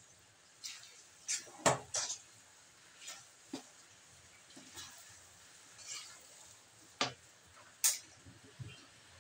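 A metal spoon stirring and folding thick, sticky rice for biko in a metal wok: irregular clinks and scrapes of the spoon against the pan, about a dozen strokes, with the sharpest knocks about two seconds in and near the end.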